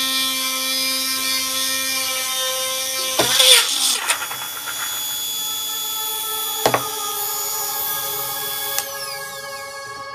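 A 220 V mains-powered DC motor from a hand mixer-grinder, running at high speed with a steady high whine, drilling into a wooden block. About three seconds in there is a loud grinding burst as the bit digs into the wood and the drill chuck comes off the motor shaft. The motor runs on bare, a sharp knock comes near seven seconds, and its pitch falls as it spins down near the end.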